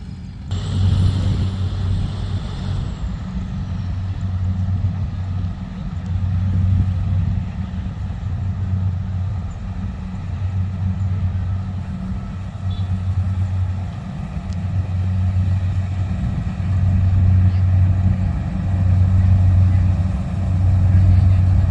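Rice combine harvester running steadily, a deep drone that swells and eases every couple of seconds. A brief hiss comes in about half a second in and lasts about two seconds.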